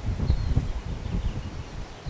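Wind buffeting the microphone in uneven gusts, with a few short high bird chirps and honeybees buzzing around an open hive.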